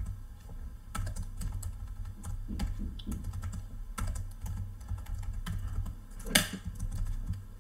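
Computer keyboard keys tapped one at a time at an uneven pace, with one louder keystroke about three-quarters of the way through, over a steady low hum.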